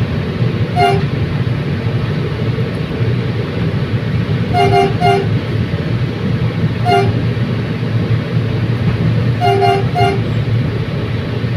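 Train running with a steady low rumble while its horn gives short toots: one, then three quick ones, then one, then three more.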